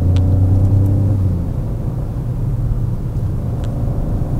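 Peugeot 208 GT Line's 1.2 PureTech three-cylinder turbo engine running under way, heard inside the cabin with road noise: a steady engine hum that eases off after about a second and a half. A few faint clicks.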